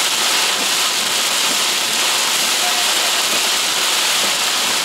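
Extremely heavy rain beating on a car's windshield and roof, heard from inside the car as a loud, steady hiss.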